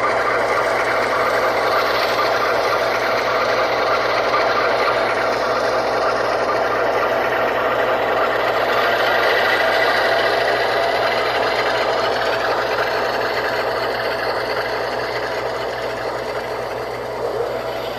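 ESU LokSound sound decoder in an HO-scale GE ES44AC model playing its diesel engine sound through two small 28 mm speakers: a steady engine drone, thin in the bass, easing off a little over the last few seconds.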